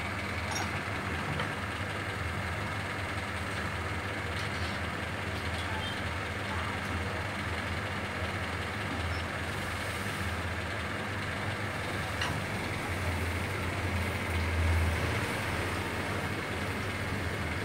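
Steady low rumble and hiss of deep-frying: a gas burner running under a kadhai of hot oil with puris frying in it, swelling briefly louder near the end.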